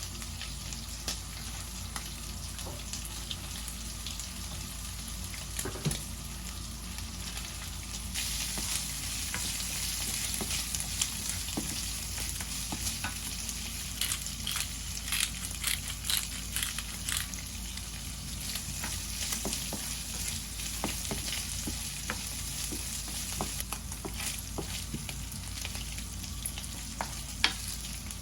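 Food sizzling in a hot frying pan, a steady hiss scattered with small crackles and spatters, growing louder about eight seconds in.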